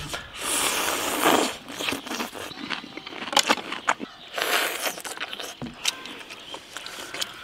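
Close-up eating: biting and chewing sauce-soaked skewered food off bamboo sticks, with wet mouth noises in short bursts and a few sharp clicks.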